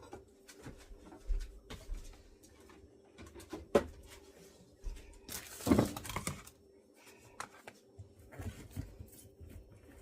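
Food-preparation handling on a kitchen counter: scattered small clicks and knocks, with a louder clatter about six seconds in.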